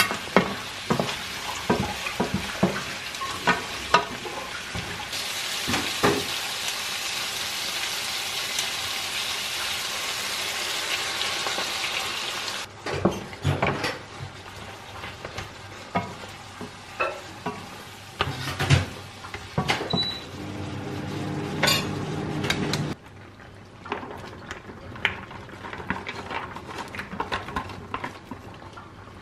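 Food sizzling in a frying pan while it is stirred, with repeated clinks and knocks of a utensil against the pan; the sizzle is louder for several seconds in the middle. A steady hum joins in for a couple of seconds near the end.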